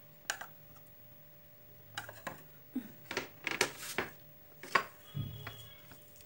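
Metal serving spoon clinking and scraping against a ceramic plate and bowl as curry is spooned onto rice: one click, then a string of sharp clinks, the loudest near the end.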